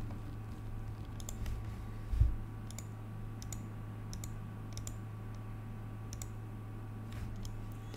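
Scattered, irregular light clicks over a steady low hum, with one low thump about two seconds in.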